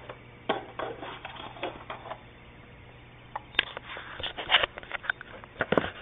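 Handling sounds on a kitchen countertop: a run of clicks, knocks and rustles from coffee containers, a scoop and plastic lids being handled, in two bursts, louder in the second half.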